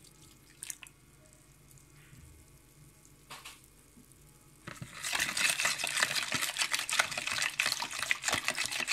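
Silicone whisk beating a thin, milky egg-and-sugar batter in a bowl. At first there are only a few light taps, then from about five seconds in comes brisk, rapid whisking, sloshing and clicking against the bowl.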